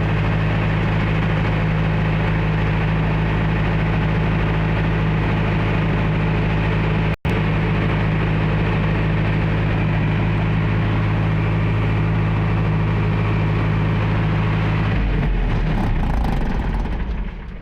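A 62.5 kVA silent-canopy generator set running with a steady, even hum, with a split-second dropout near the middle. About fifteen seconds in, the steady hum breaks up and the sound falls away as the engine winds down.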